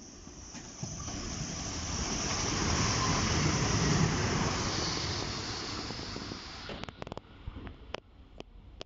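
NIR Class 3000 diesel multiple unit passing at speed: a rush and rumble of wheels on rail that builds to a peak about four seconds in and then fades. About seven seconds in the sound cuts off suddenly, followed by a few sharp clicks.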